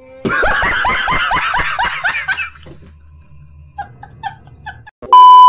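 A man laughing hard, a quick run of about ten 'ha' pulses falling in pitch that fades out after about two seconds. Near the end a loud, steady electronic bleep tone starts.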